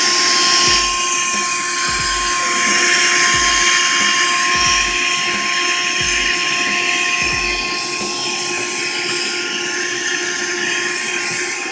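Vacuum cleaner motor running steadily with a high whine, having just spun up, as it cleans dust out of the inside of an opened heater. A few low thuds come in the first eight seconds.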